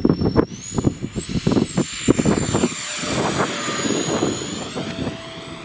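Electric ducted fan of a 3D-printed RC jet whining high in flight, its pitch stepping up about half a second in and shifting again with throttle. Irregular low rumbling from wind on the microphone runs under it.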